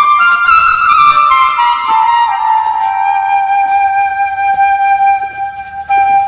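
Background music: a flute melody of long held notes that step slowly downward in pitch.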